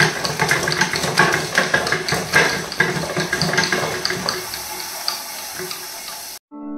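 Pedal-driven bicycle chain assembly turning a belt-driven 12-volt car dynamo: a dense, irregular clatter of clicks and rattles, easing off after about four seconds and cutting off abruptly near the end.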